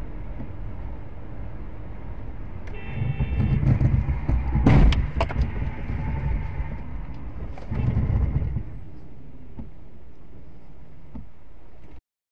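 Car cabin noise from a dashcam while driving, a steady engine and road rumble. A short high tone sounds about three seconds in, and a sharp loud knock comes with a clatter around five seconds. Near eight seconds there is another louder stretch, and the sound cuts off just before the end.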